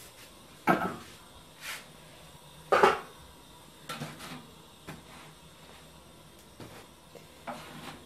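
About five separate metal knocks and clatters of cookware being handled on a stovetop gas tandoor, the loudest about three seconds in.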